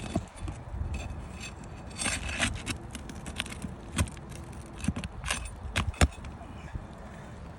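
Irregular clicks, taps and short scrapes of hard objects being handled, with a few sharper knocks about two, four and six seconds in.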